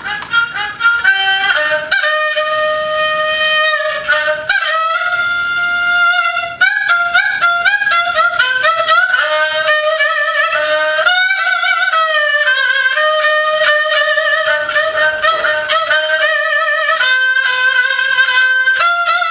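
Solo haegeum, the Korean two-string bowed vertical fiddle, playing a slow melody of held notes with a reedy, nasal tone. The notes slide between pitches and waver with vibrato.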